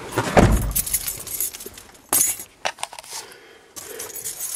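A key ring jangling and clinking as it is handled, with scattered clicks and a dull knock about half a second in. The engine is not yet running.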